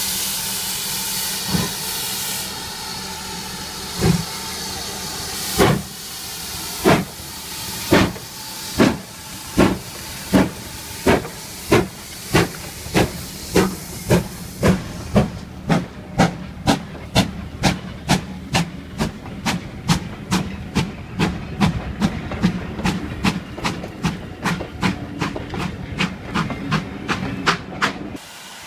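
Two GWR steam locomotives, Large Prairie tank engine 4160 and Modified Hall 6960, starting a train: a heavy hiss of steam at first, then chuffing exhaust beats that quicken steadily as the train gathers speed, from about one every second and a half to two or more a second. The hissing dies away about halfway through while the chuffing goes on.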